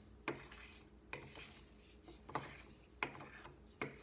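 Wooden stick scraping and knocking against a small glass jar in short, irregular strokes, about five in four seconds, as a soft coconut oil and baking soda paste is scraped into the jar.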